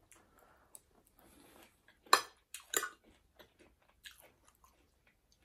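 Close-up chewing of food, with small wet crackles and two sharper, louder crunches about two and three seconds in.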